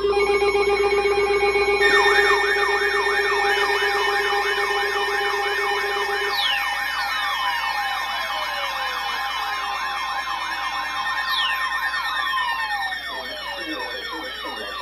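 Several electronic sirens layered together. Steady tones sound first. About two seconds in, a fast up-and-down yelp starts, and from the middle on, slower wails glide down in pitch.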